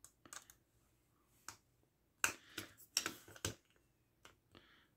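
Scattered sharp clicks and taps of a small screwdriver and hard plastic parts as a tiny screw is worked out of an infrared thermometer's plastic housing, the loudest cluster about two to three and a half seconds in.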